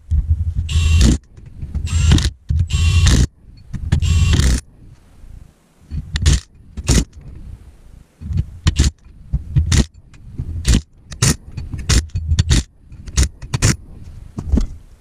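Cordless impact wrench running down the ring gear bolts on a limited-slip differential: four long bursts of about a second each, then a string of short trigger pulls from bolt to bolt.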